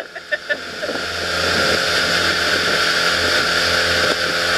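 Pontoon boat's motor running at full throttle under a steady rush of wind and water noise, which swells over the first second and then holds.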